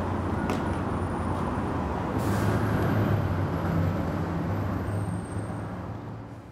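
Street traffic: a heavy vehicle's engine running with a steady low rumble, and a short air-brake hiss about two seconds in. The sound fades out near the end.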